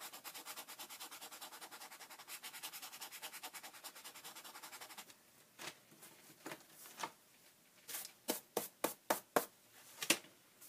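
Knife blade scraping dried residue off a paper book page. It makes rapid back-and-forth strokes for about five seconds, then slower, separate scrapes.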